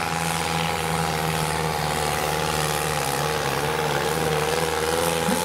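Zetor farm tractor's diesel engine running flat out under heavy load as it drags a tractor-pulling sled. It holds a steady, loud note that wavers only slightly in pitch.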